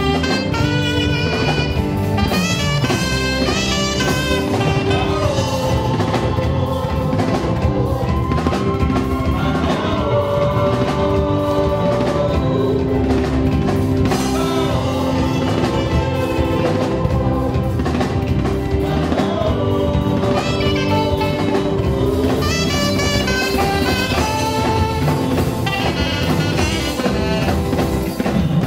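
Live gospel band music: a saxophone carries the melody over drum kit, bass guitar and keyboard.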